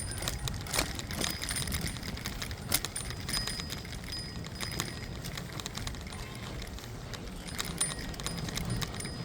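Irregular sharp clinks and knocks, several close together at times, over a low steady rumble, with a few short high squeaks.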